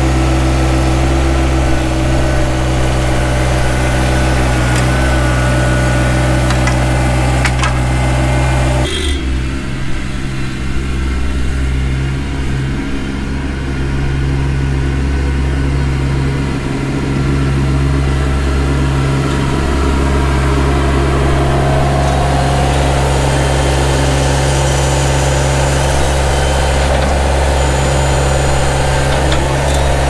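Yanmar compact tractor's diesel engine running steadily while its front loader works a dirt pile. About nine seconds in the sound changes abruptly and the engine is heard from farther off, still running steadily.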